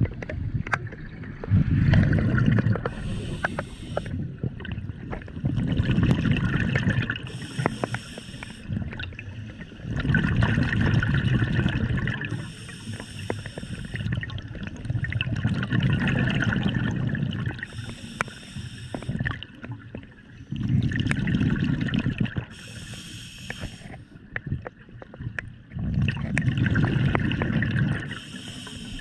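Scuba diver breathing through a regulator in a slow, even rhythm, one breath about every five seconds. Each cycle is a hiss from the regulator and a gurgling rush of exhaled bubbles.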